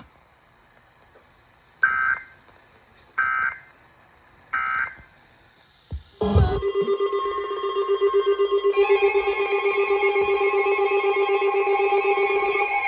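Three short warbling Emergency Alert System data bursts, about 1.4 seconds apart: the end-of-message signal closing a severe thunderstorm warning. About six seconds in, a click is followed by a steady, pulsing electronic alert tone, and a second, higher tone joins it about nine seconds in.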